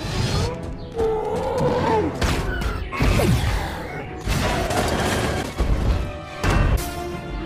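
Animated fight soundtrack: dramatic music with several heavy crashes and thuds of the Hulkbuster and Hulk battling.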